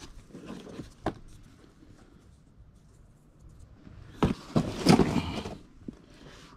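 Items being handled in a cluttered box: a single knock about a second in, then, about four seconds in, a loud burst of rustling and scraping lasting over a second as cardboard pieces are tipped out of a plastic tray and the tray is lifted.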